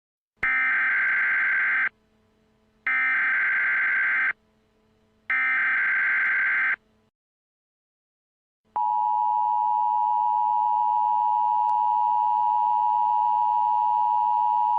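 Emergency Alert System signals: three screeching SAME digital header bursts of about a second and a half each, then, after a short pause, the steady two-tone EAS attention signal, a harsh drone that announces an alert message.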